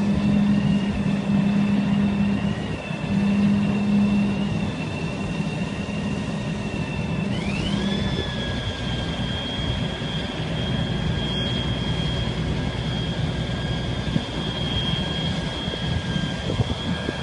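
Kalmar log stacker's diesel engine running under load with a high hydraulic whine while the grapple handles a bundle of logs. About seven seconds in, the whine rises sharply in pitch and then holds steady.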